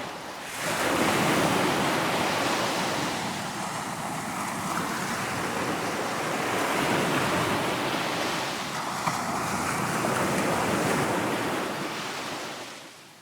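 Sea surf: waves washing in and drawing back in a steady rush that swells and eases every few seconds, fading out near the end.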